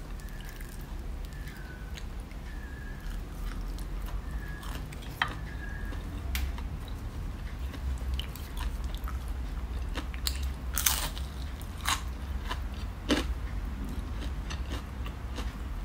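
Chewing and biting into crispy batter-fried eggplant, with scattered sharp crunches of the crisp coating; the loudest crunches come a little after halfway.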